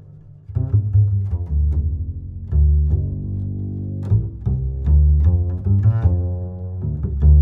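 Background music on low strings, mostly plucked, playing short notes in a bouncy rhythm over a strong bass line, starting about half a second in.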